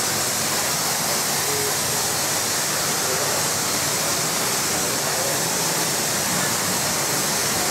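A pressure-washer wand spraying a fine, high-pressure jet of water onto a car's bodywork, a steady hiss.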